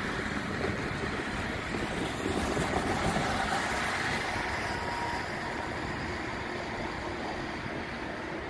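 Steady outdoor rumble and hiss of wind on the microphone and distant road traffic.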